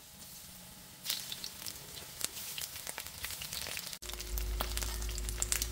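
Eggplant slices frying in hot oil in a nonstick pan: sizzling with scattered crackles and pops. About four seconds in it jumps abruptly to a steadier sizzle over a low hum.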